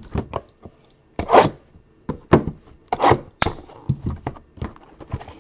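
Trading cards being handled and flicked through: a string of short rustles, slides and light taps, with a few louder scrapes about a second in and again around two and three seconds in.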